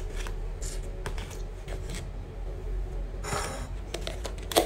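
Plastic takeaway food containers handled on a table: light clicks and taps, a crinkling rub about three seconds in, then a sharp plastic snap near the end as the lid is pried off a round plastic tub.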